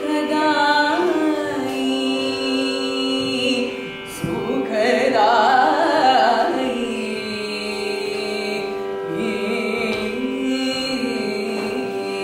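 Devotional singing in an Indian classical style over a steady sustained drone, the voice gliding and ornamenting around the held tones.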